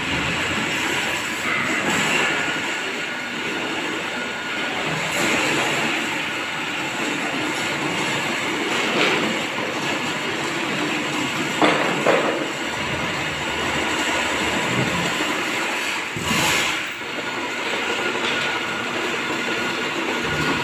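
Motorized drain-cleaning machine running steadily while its cable is fed down a floor drain to clear the waste pipe, with a few sharper knocks about twelve and sixteen seconds in.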